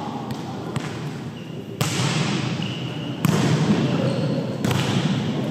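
A volleyball being struck during a rally: a few sharp hits roughly a second and a half apart, each ringing on in the large, echoing gym hall, over a steady background hum.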